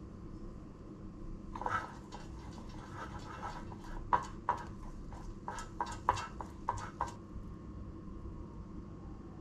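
Pastry brush tapping and dabbing in the cups of a metal muffin tin as they are oiled: a quick run of about a dozen light taps that stops a couple of seconds before the end, over a steady low hum.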